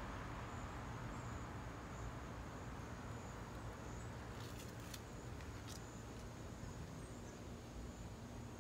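Faint outdoor insect chorus: a steady high-pitched chirring that swells slightly at a regular pace over a low background rumble, with a few brief clicks a little past halfway.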